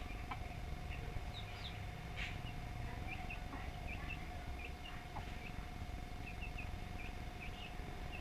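Faint, short high chirps from small birds, repeated irregularly one or two a second, over a steady hum and low rumble.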